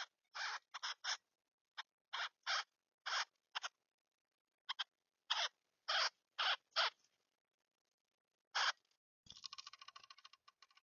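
A bird moving inside a bird house makes a series of short scratchy sounds, about a dozen of them, irregularly one to three a second. Near the end comes a rapid fluttering rattle lasting about a second and a half.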